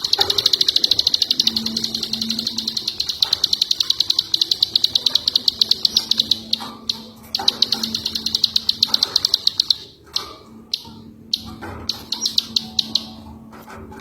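Ciwah songbird singing a fast, even, high-pitched trill of rapidly repeated notes in three long phrases, with short pauses between them.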